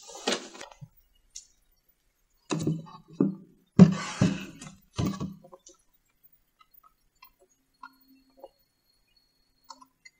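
Knocks and clinks from a small model house being handled, in a few short clusters over the first five or six seconds, the loudest about four seconds in, then only faint scattered ticks.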